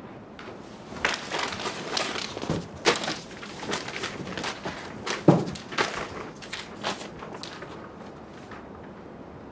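A quick, irregular run of knocks, clatters and rustles of small household objects being picked up and set down while a room is tidied, busiest from about a second in until near the end.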